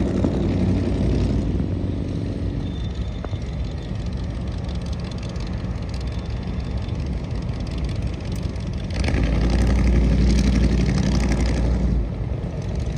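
Motorcycle engines running nearby. One gets clearly louder about nine seconds in, holds for about three seconds, then drops back.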